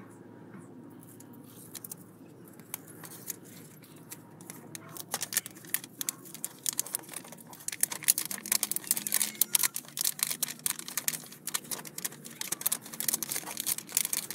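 Backing liner being peeled off the double-sided tape on a carbon-fibre-print leather anti-kick pad: a dense crackling and crinkling of the liner that starts about five seconds in and grows louder.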